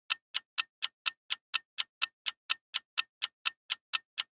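Clock-ticking sound effect: sharp, even ticks at about four a second, serving as a quiz countdown timer while the question waits for its answer.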